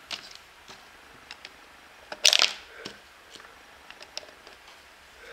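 Plastic LEGO bricks clicking and rattling as pieces are handled and pressed together, with scattered light clicks and a louder cluster of clicks about two seconds in.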